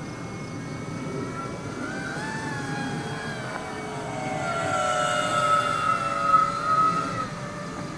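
Electric motor and propeller of an E-flite Cessna 150 radio-controlled model plane whining as it flies past overhead, its pitch shifting up and down. It grows louder to a peak between five and seven seconds in, then fades.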